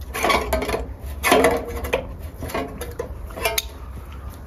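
Sheet-metal gutter parts clinking and clattering as they are handled, in several short bursts, over a steady low hum.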